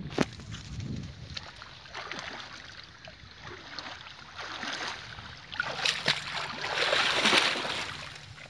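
Water sloshing and splashing as people wade through a shallow muddy channel, drawing a fishing net. A sharp click comes right at the start, and the sloshing swells louder in the last third.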